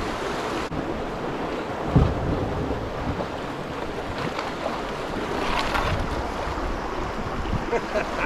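Shallow river rapid rushing steadily over limestone ledges, with wind buffeting the microphone. A single low thump about two seconds in.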